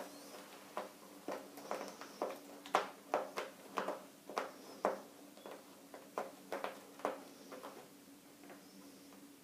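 Thai cat giving a rapid run of short calls, about two to three a second, over a steady low hum.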